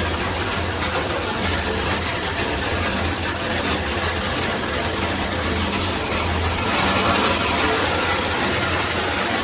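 SparkPod 10-mode handheld shower head spraying water at high pressure: a loud, steady hiss of spray with a low hum underneath. About two-thirds of the way through, the hiss turns brighter and louder.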